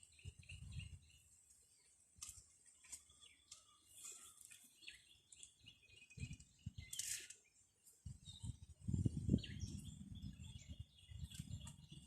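Small birds chirping, short scattered calls throughout, over bursts of low rumbling noise that are loudest from about eight seconds in.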